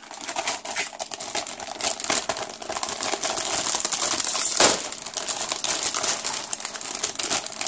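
Clear plastic bags around plastic model-kit runners crinkling as gloved hands pull them out of the box: a dense run of crackles, loudest about halfway through.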